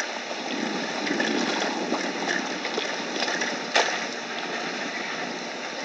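Lake water lapping and splashing at the waterfront, with small scattered ticks and one sharp knock a little under four seconds in.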